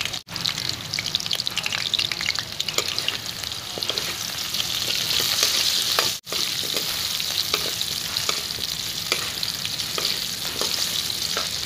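Potato chunks frying in oil in an aluminium kadai: a steady sizzle with crackles, while a metal spatula stirs them and scrapes against the pan. The sound drops out twice for an instant, just after the start and about halfway through.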